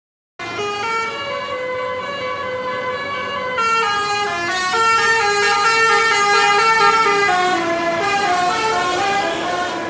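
Bus 'telolet' horn, a set of multi-trumpet air horns, playing a tune of held notes that step up and down, with several notes sounding together; it starts about half a second in and gets a little louder partway through.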